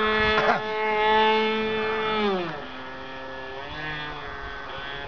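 Tower .75 two-stroke glow engine of an RC airplane in flight, running with a steady high buzz. About two and a half seconds in, its pitch slides down and it gets quieter, then it runs on at a lower pitch.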